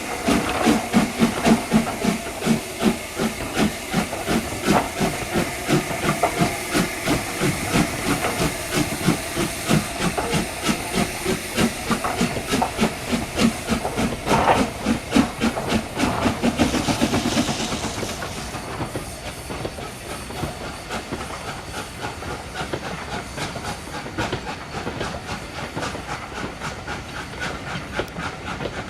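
Steam locomotive working hard, with a rhythmic beat of exhaust chuffs and hissing steam. After about 18 seconds the beats fade, leaving the steady clatter of the train rolling on the rails.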